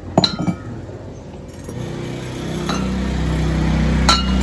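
Glass jars clinking against each other as they are handled: a quick cluster of clinks near the start, then single clinks around the middle and near the end. A low rumble builds from about halfway.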